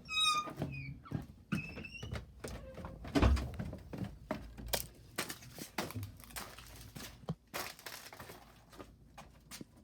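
Footsteps and knocks of someone walking to another room, with a loud thump about three seconds in and a couple of short, high squeaks in the first two seconds.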